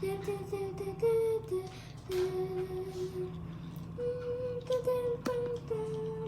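A person humming a slow tune of held notes, with a few light clicks.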